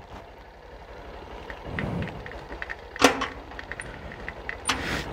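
A few sharp knocks over faint outdoor background noise: a single loud one about three seconds in, a second near the end, and light ticks before them.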